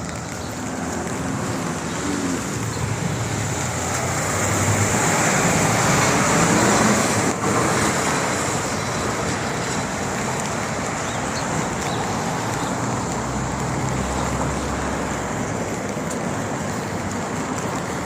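Road traffic on a rain-wet street: a steady hiss of tyres and engines. A vehicle passes, loudest about five to seven seconds in.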